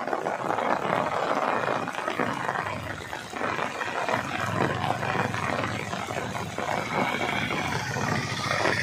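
Heavy rain falling on a flooded road in strong wind, a steady loud noise, with vehicles swishing through the water as they pass. A higher whine joins near the end as an auto-rickshaw goes by.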